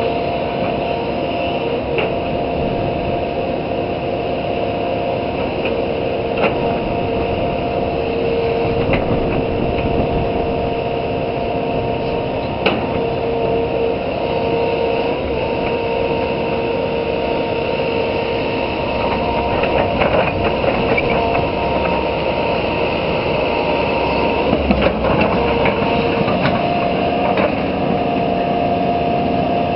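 Hitachi Zaxis 160LC excavator running under load, its engine and hydraulics giving a steady whine. Sharp knocks come every few seconds as the bucket works the soil.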